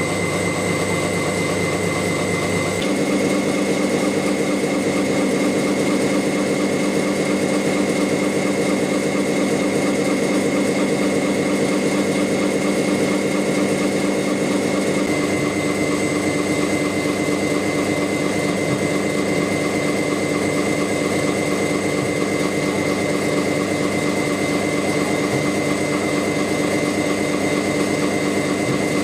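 Steady machine hum made of several fixed tones, changing abruptly about three seconds in and again about halfway through.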